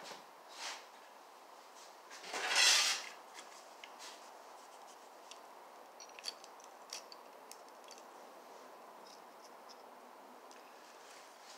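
Stick welder arcing briefly: a hissing crackle lasting about a second, about two seconds in, then only faint light clicks and taps.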